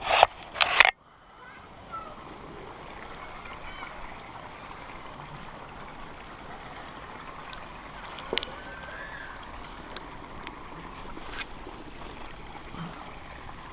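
A steady rushing hiss with a few sharp clicks and scrapes from hands on tree bark during a climb. It opens with two short loud bursts in the first second.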